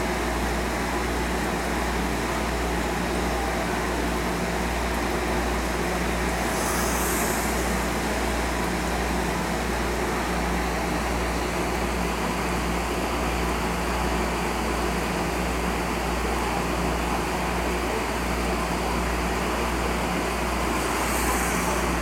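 Saltwater aquarium equipment running: a steady low hum with a rushing of circulating water. Two brief high hisses come about a third of the way in and near the end.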